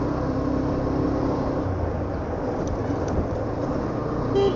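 Motorcycle running at riding speed, heard through an action-camera mic as a steady engine hum under wind rumble. A brief beep near the end.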